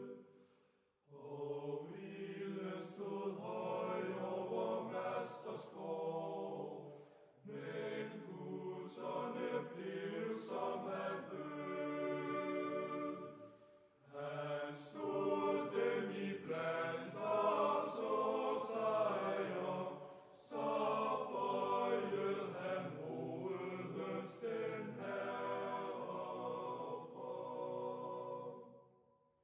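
Background music of choral, chant-like singing, in long sustained phrases of about six seconds with brief breaks between them.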